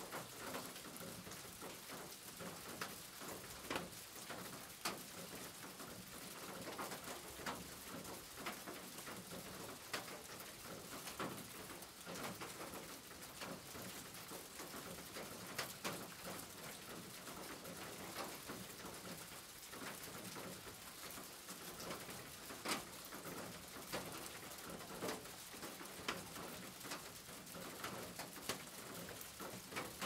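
Rain drumming steadily on a tin roof, with many single drops landing as sharp, irregular ticks. A bird calls in the background.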